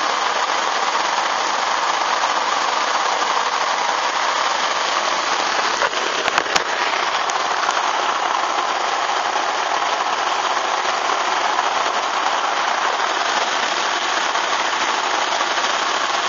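Heavy downpour of rain hitting a pond's surface and a boat umbrella overhead: a steady, dense hiss of rain. A few sharp knocks come about six seconds in.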